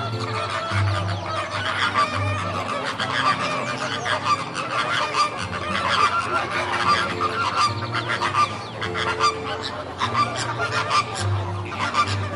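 A flock of flamingos honking and chattering: many short goose-like calls overlapping without a break.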